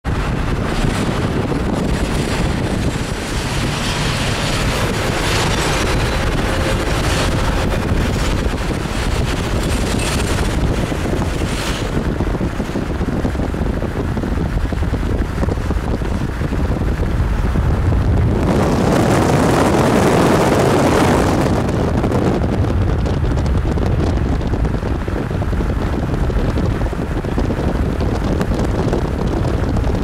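Double-stack container freight train rolling past: a steady rumble of wheels on rail, with wind buffeting the microphone. The noise swells for a few seconds about two-thirds of the way through.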